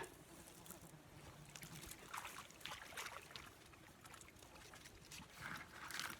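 Faint water trickling and dripping, with a few soft splashes about two seconds in and again near the end.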